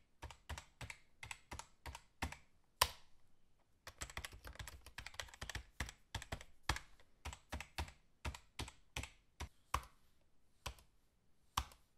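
Keyboard typing clicks: quiet, irregular taps a few a second, with a quicker run of taps from about four to six seconds in and one louder tap near three seconds.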